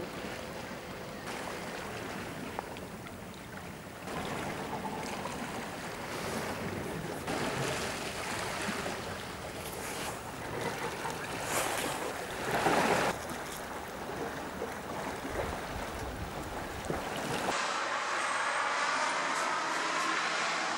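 Wind buffeting the microphone over the steady wash of the sea, with louder gusts through the middle; near the end the low rumble drops away abruptly.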